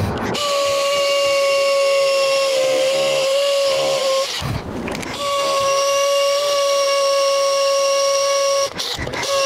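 Makita cordless drill motor running at a steady high-pitched whine, cutting out briefly about four and a half seconds in and again near the end, with a short burst of rattling noise at each break before it runs again.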